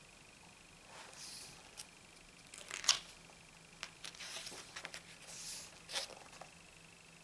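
Pages of a photobook being handled and turned: a few soft paper swishes and two sharp clicks, the loudest about three seconds in and another about six seconds in.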